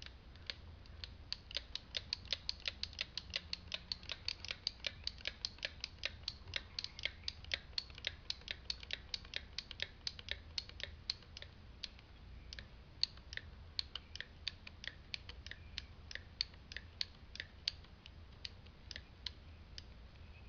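Hand ratchet cable cutters being pumped, the ratchet pawl clicking in a steady run of about three to four clicks a second, spacing out and turning irregular in the second half, as the blade works through a bundle of five heavy 1/0-size welding cables.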